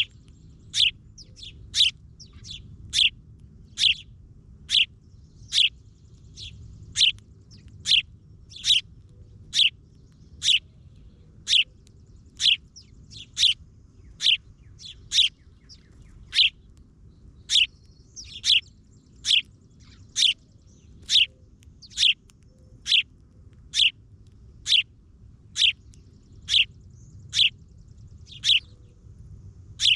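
A single bird calling over and over: one short, sharp chirp that sweeps downward in pitch, repeated very evenly about once a second.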